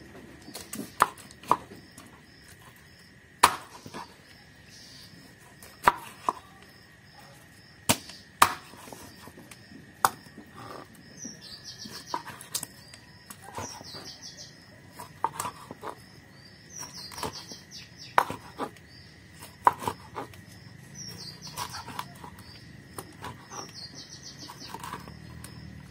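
A blunt khukuri chopping through a fish onto a wooden cutting board: sharp knocks at irregular intervals, a few much louder than the others.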